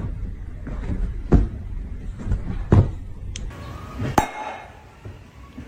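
A few sharp knocks or taps, about one every second and a half, over a low steady hum.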